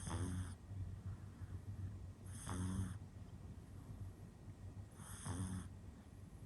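A sleeping pug puppy snoring, three snores about two and a half seconds apart, each with a whistly, squeaky edge.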